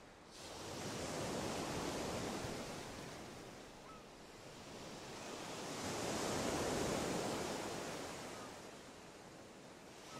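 Sea waves washing onto a shore, the surf swelling and ebbing twice, about five seconds apart.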